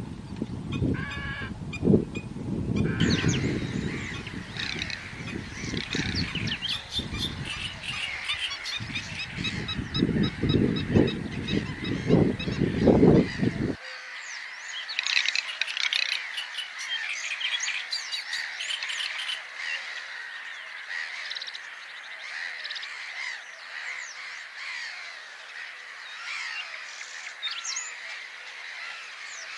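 Wetland waterfowl calling, heavy honking calls over a low rumble, mixed with a busy chorus of high bird chirps and trills. About halfway the honking and rumble stop abruptly, leaving only the chirping, trilling chorus.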